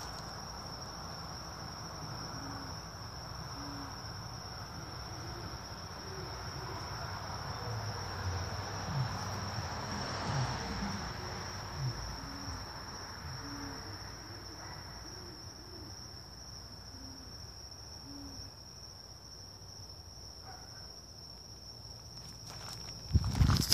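Great horned owl hooting: short, deep hoots in spaced groups, over a steady high-pitched chorus of crickets. Loud thumps of footsteps or handling near the end.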